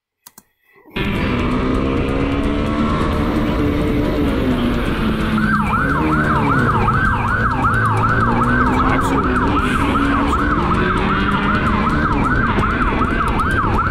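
Motorcycle engine running with wind and road rush on a rider-mounted camera, starting about a second in. About five seconds in, a police siren starts yelping, sweeping quickly up and down about twice a second.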